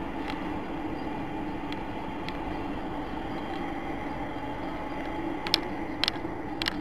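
Steady running noise of a moving vehicle. In the last second and a half a run of sharp clicks comes in, about two a second.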